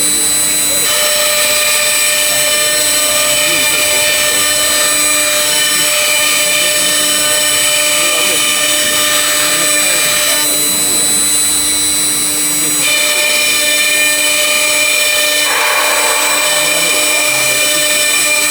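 CNC router spindle running and cutting, with a steady high whine over a hiss. The whine changes in texture several times as the cut changes.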